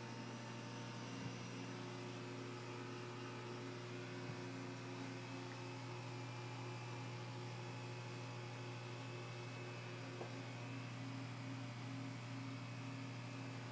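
A steady low hum with several steady tones above it, broken only by a couple of faint clicks.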